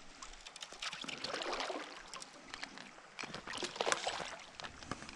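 Hooked salmon splashing at the river surface while being played on a fly line, water sloshing in irregular spurts, loudest about four seconds in.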